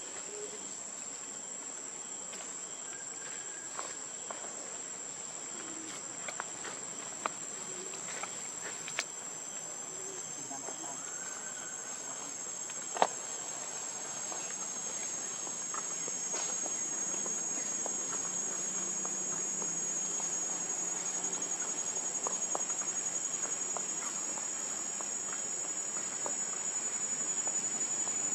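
Steady high-pitched drone of insects, with a second, slightly lower drone joining about ten seconds in. Scattered light clicks come through, and a sharper one about thirteen seconds in.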